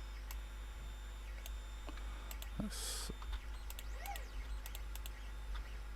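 Computer keyboard and mouse clicking now and then, a few scattered clicks over a steady low hum.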